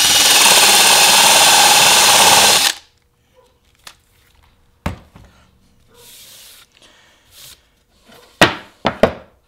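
Electric drill boring into painted particleboard with a freshly sharpened spade bit, running steadily for about three seconds and then stopping abruptly. A few short knocks follow.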